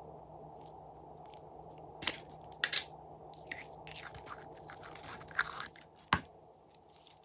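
Slime being handled and mixed by hand, giving a string of irregular crackles, pops and crunches, the sharpest around three seconds in and again near the end, over a steady low hum.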